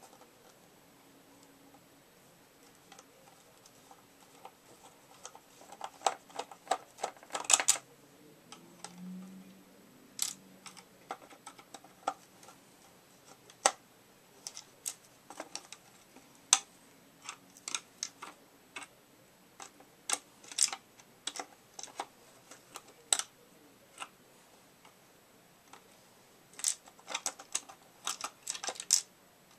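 Irregular clicks and taps of hard plastic parts being handled as a Swivel Sweeper's housing and motor are worked apart by hand, with quick flurries of clicks about six seconds in and again near the end.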